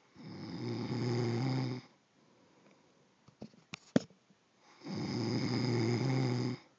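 Loud snoring from a sleeper: two long snores of about two seconds each, roughly five seconds apart. A few short sharp clicks fall between them.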